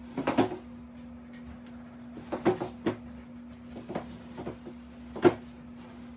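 Furniture being shifted across a tile floor: a series of knocks and bumps from a coffee table and a foam cushion block, the loudest about five seconds in, over a steady low hum.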